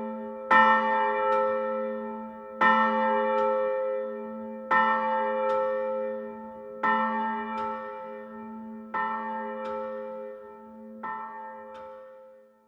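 Large bell tolling in pairs of strokes: a strong strike followed by a lighter one just under a second later, six pairs about two seconds apart. Each stroke rings on. The strikes grow steadily quieter and the ringing dies away near the end.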